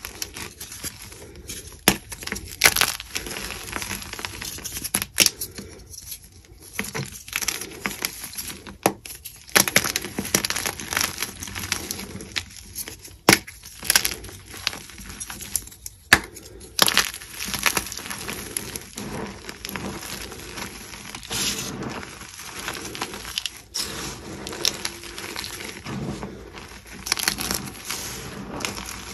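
Blocks of dyed gym chalk crushed and crumbled by hand in a pile of powder and broken chunks. A dense run of crisp crunches and crackles, with occasional louder sharp snaps as pieces break.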